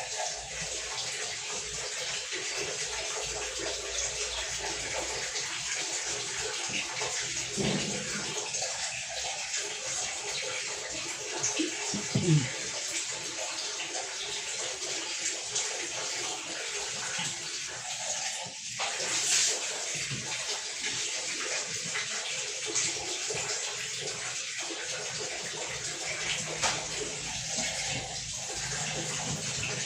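Steady rush of running water, with a few brief knocks along the way.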